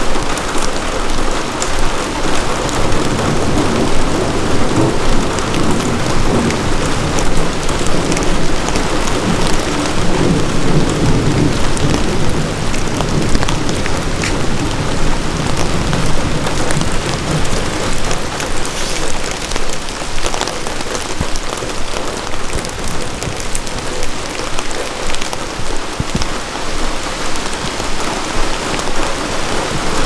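Steady rain falling through the trees, with single drops striking close by now and then. A low rumble of distant thunder rolls through the first half.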